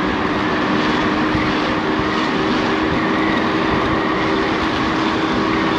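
Wind on the microphone and road noise from an electric motorbike riding at a steady speed, with a steady hum running underneath.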